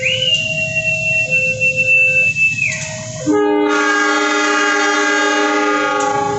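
Train air horn sounding one long, loud chord for about three seconds, starting about three seconds in. Before it, a passing train rumbles on the rails with a high steady whine, under a level-crossing warning alarm that alternates between two tones about once a second.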